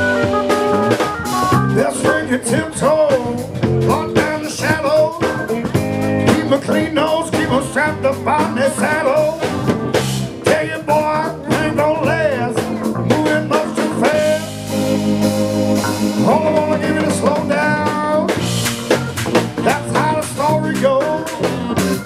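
Live band playing a blues song: guitar with bending, wavering notes over a drum kit keeping a steady beat.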